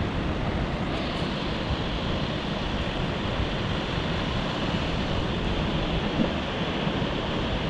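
Steady wash of surf breaking on a sandy beach, mixed with wind.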